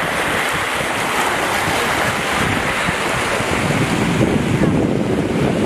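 Steady, loud wind buffeting the microphone, over the wash of river water.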